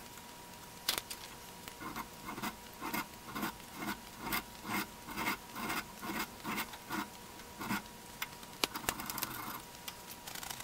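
Metal-on-metal rubbing from a steel C-clamp's hand-filed threaded screw being worked by hand in the clamp frame, in a rhythmic run of strokes about two a second. A few sharp clicks and a short scratch follow near the end.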